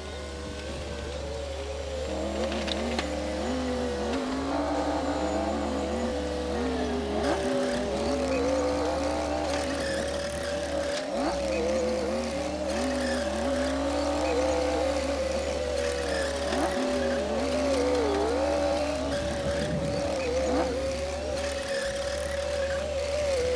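Komatsu D60P bulldozer's diesel engine running steadily under load, its pitch dipping briefly several times as the load comes on and easing back up.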